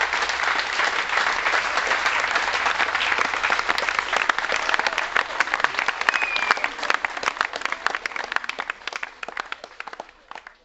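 Audience applauding: dense clapping at first, thinning into scattered separate claps from about halfway, then dying away near the end.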